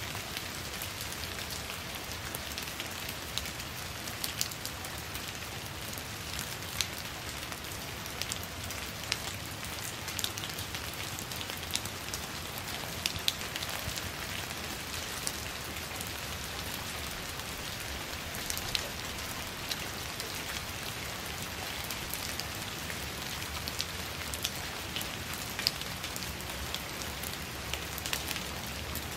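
Steady rain falling on leaves: an even hiss dotted with many sharp drop ticks, with louder single drops scattered throughout.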